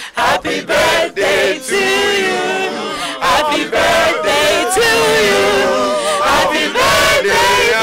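A mixed group of young men and women singing together, with one woman leading on a microphone.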